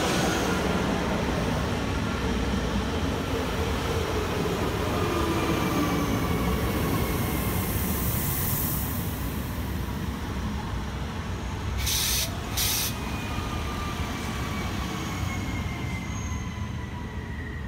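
Alstom Régiolis regional train passing close by and pulling away, its rolling rumble fading while a thin whine slides down in pitch. Two short hissing bursts come about twelve seconds in.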